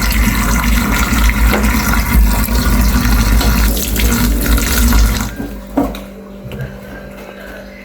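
Water running hard from a tap into a sink, cut off about five seconds in, followed by a few light knocks.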